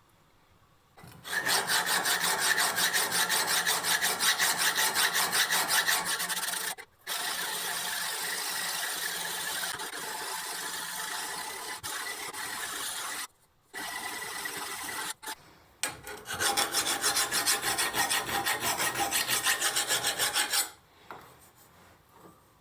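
A steel axe head being worked by hand, probably filing or abrading toward the edge, in quick repeated strokes. The strokes come in several spells with short breaks, and a smoother, steadier stretch of rubbing runs in the middle.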